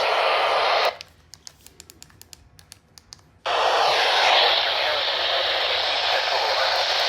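Radio static hissing from a weather radio receiver. About a second in, the hiss cuts out abruptly to near quiet with faint scattered clicks for about two and a half seconds, then comes back just as suddenly.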